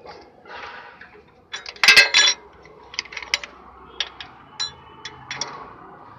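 A metal wrench clinking against the starter motor's mounting bolt and bracket as the bolt is tightened: a loud cluster of ringing clinks about two seconds in, then lighter single clinks every half second or so.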